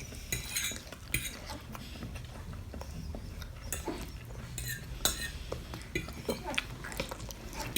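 A spoon clinking and scraping against a dish in irregular taps as a toddler eats.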